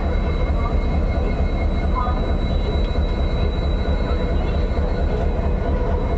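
Railway locomotive running at the platform with a steady, unbroken low rumble and a faint high whine above it.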